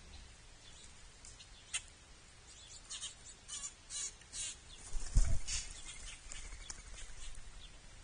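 A few short rasping bursts, then about five seconds in a heavy thump as a leaping squirrel lands on a hanging tube bird feeder, with rattling just after.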